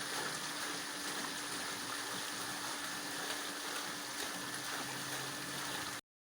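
Steady rushing noise, much like running water, with a constant hum underneath; it cuts off suddenly near the end.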